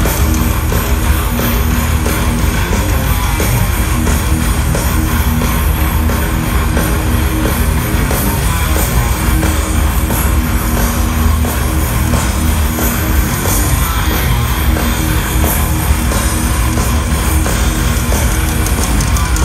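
A live heavy metal band plays at full volume through a large outdoor PA: distorted electric guitars, bass and drums, heard from within the crowd.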